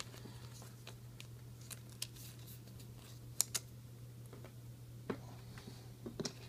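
Trading cards being handled: soft slides and rustles with a few light clicks as cards are flicked apart and set down, the sharpest two in quick succession about halfway through, over a faint steady low hum.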